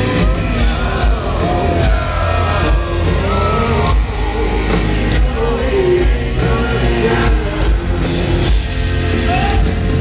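Live rock band playing at full volume: distorted electric guitar, drum kit with cymbal crashes, and a sung vocal line that glides in pitch, strongest in the first half and around the middle.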